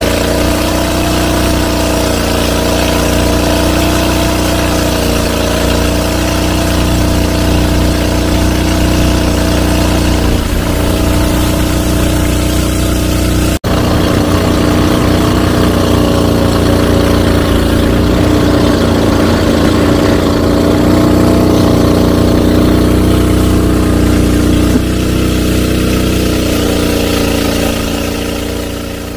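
Engine of a ketinting, a small longtail river boat, running steadily and loud while under way, with a steady hum of several tones; the sound drops out for an instant about halfway.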